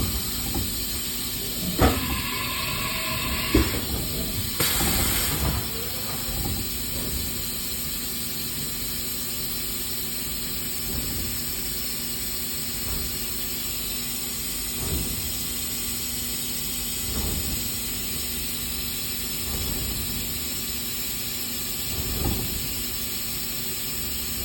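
Haas EC-300 horizontal machining center powered up: a steady machine hum and hiss, broken by a few clunks, a short whine about two to three seconds in, and a brief blast of air hiss around five seconds in.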